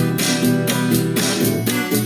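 Instrumental rock music: guitars over a drum machine keeping a steady beat of about four hits a second.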